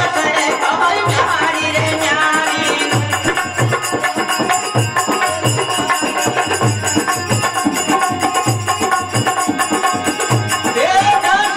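Harmonium playing a folk bhajan melody over a steady hand-drum beat, with a voice coming in near the end.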